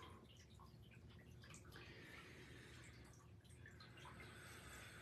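Near silence: faint room tone with a few tiny scattered ticks.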